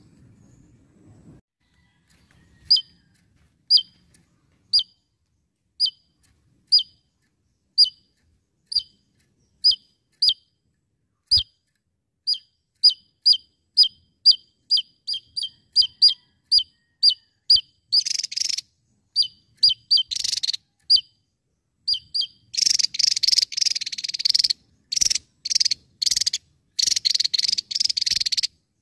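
Javan tesia calling: short, sharp notes that drop in pitch, about one a second at first, quickening to two or three a second. From about two-thirds of the way in they break into loud, harsh, buzzy rattling bursts.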